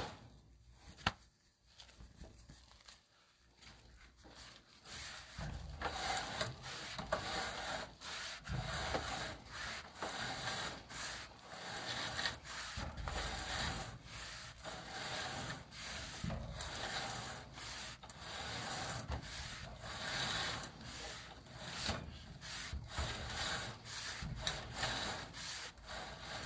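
A sewer inspection camera's push cable is being pulled back hand over hand out of the drain line, rubbing and scraping in uneven strokes. The strokes begin about five seconds in, after a quiet start.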